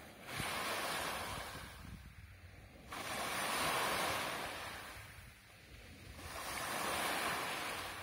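Small sea waves breaking on a pebble beach: three washes of surf about three seconds apart, each starting suddenly and fading as the water runs back.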